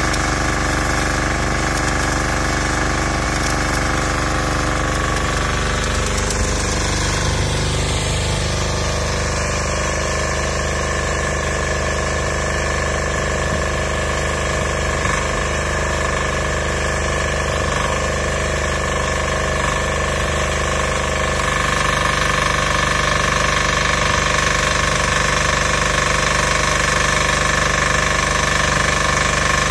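MWG 6500 diesel welder-generator engine running steadily while powering stick welding, with the crackle of the welding arc on the steel bucket. It gets a little louder about two-thirds of the way through.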